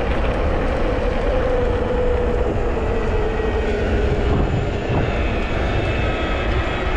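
Luna Cycle X1 Enduro electric mountain bike with a Bafang M600 mid-drive motor under way on pavement. Wind rushes over the microphone, with a steady whine from the bike that slowly drops in pitch.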